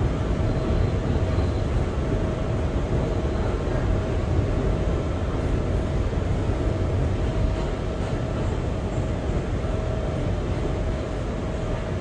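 Steady interior rumble and hum of a Kawasaki R211 subway car, with a faint steady whine over it.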